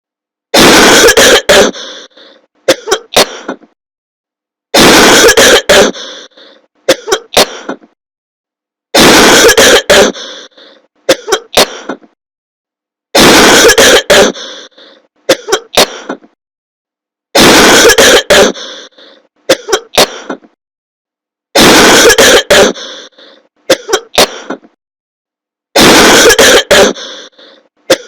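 Very loud, clipped coughing on a loop: one long cough followed by two or three short coughs, the same pattern repeating about every four seconds, seven times.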